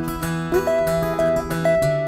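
Two steel-string acoustic guitars fingerpicked in a folk-blues instrumental passage, one a capoed Epiphone flat-top. A note slides up about half a second in, and held single notes ring over a repeating bass line.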